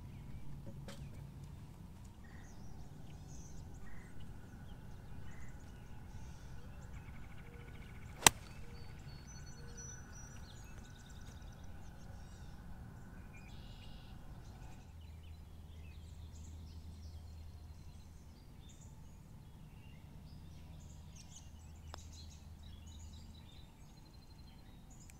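A golf club striking a ball once with a sharp crack about eight seconds in, and a much fainter click of a short chip near the end, over quiet outdoor ambience with faint birds chirping.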